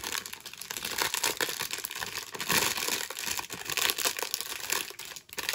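Clear plastic candy wrapper crinkling and crackling continuously as it is handled and pulled open by hand.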